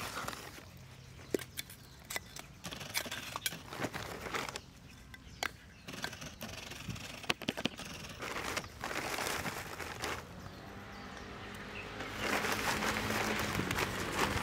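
Charcoal sticks being set down in a brick fire pit: scattered hard clicks and knocks of charcoal against charcoal and brick. A steady rushing noise comes in near the end.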